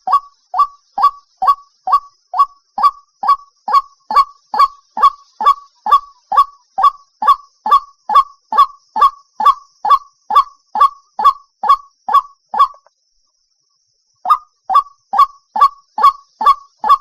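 White-breasted waterhen calling: a long run of short notes, evenly spaced a little over two a second, each dropping in pitch. The run breaks off for about a second and a half about three-quarters of the way through, then starts again.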